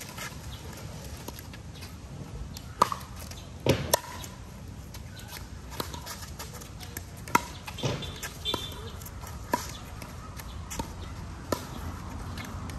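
Pickleball rally: a string of sharp, hollow pocks as the plastic ball is struck by paddles and bounces on the concrete court, about one every second or so at an uneven pace.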